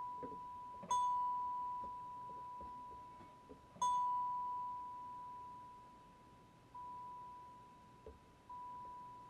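Synclavier Regen playing a resynthesized celesta sound in loop mode: one high note held on and re-struck four times. Each strike has a bright attack that fades into a steady, looping sustain whose level sinks by the end of the loop.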